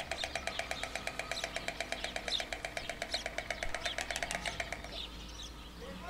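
White stork clattering its bill on the nest, a greeting display between mates: a fast, even rattle of clacks, about a dozen a second, that stops about five seconds in. Small songbirds chirp faintly in the background.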